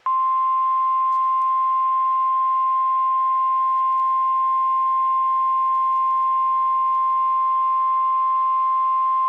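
Weather radio warning alarm tone: one loud, steady, unbroken beep at a single pitch near 1 kHz, coming on abruptly. It is the alert signal sent ahead of a tornado warning broadcast.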